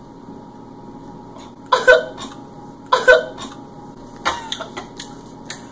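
A person coughs twice, about a second apart. A few light clicks and taps follow.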